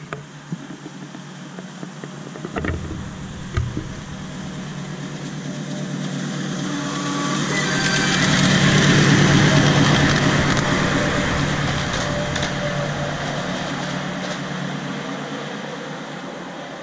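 Ride-on miniature railway diesel-outline locomotive passing on the track: a steady drive hum and the rumble and hiss of wheels on rail build up, peak about nine seconds in, then fade as it moves away. A few sharp clicks sound in the first few seconds.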